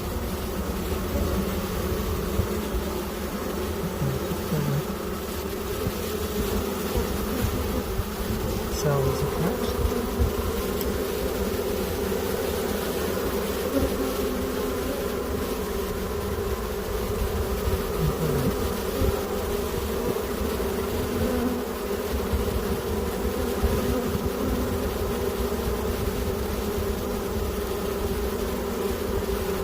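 Honeybee colony humming steadily at the hive, a dense, even buzz of many wings. The beekeeper takes it as the sound of a colony that has just accepted its newly introduced queen after a day queenless.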